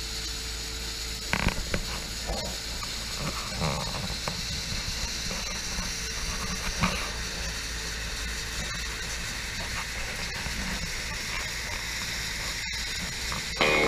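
Steady hiss and low rumble of outdoor background noise, with a few scattered knocks in the first seven seconds.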